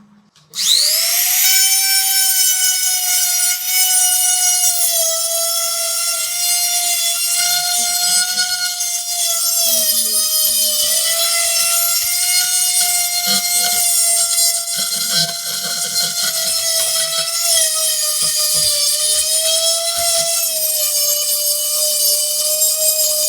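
High-speed electric power tool spinning up about half a second in, then running with a steady high whine that sags slightly in pitch at times, as when it is pressed onto the work.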